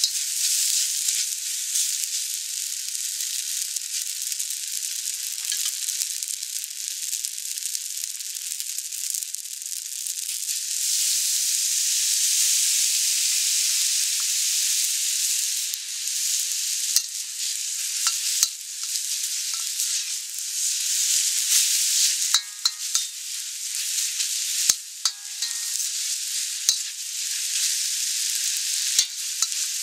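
Glass noodles sizzling and frying in a hot wok as they are stir-fried and tossed, a steady hiss. Short clicks of a utensil against the wok come now and then, mostly in the second half.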